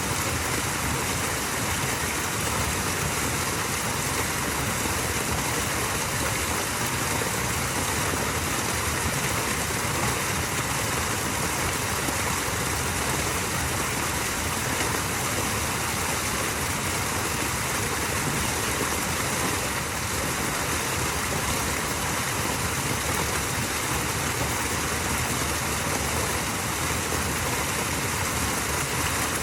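Small waterfall: water falling and running in a steady, even rush.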